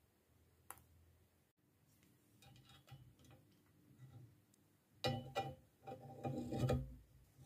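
Tools being handled on a steel windscreen-wiper linkage: scattered light clicks, then louder metallic clattering and scraping with some ringing, in two bursts about five and six seconds in.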